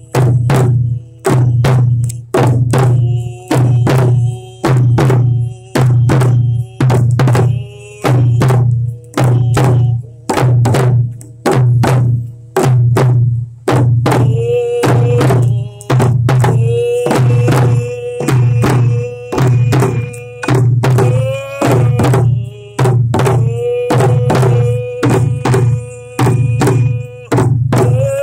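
Hand-held frame drum struck with a padded beater in a steady beat, about one stroke a second, each with a deep boom. A man sings long held notes over it without clear words, faint at first and much stronger from about halfway through.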